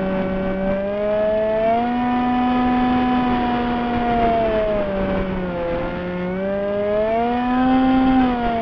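Radio-controlled model airplane's motor and propeller heard from a camera on board: a steady hum whose pitch drops and rises several times with the throttle, over a rush of wind.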